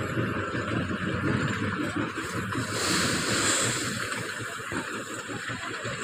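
LiuGong wheel loader's diesel engine running against the steady noise of a stone-crushing plant, with a short rushing hiss about three seconds in.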